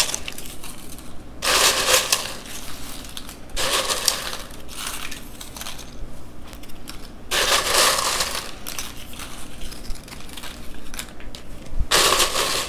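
Handfuls of dry corn tortilla chips crackling and rustling as they are grabbed and laid over the nachos, in four separate bursts a few seconds apart.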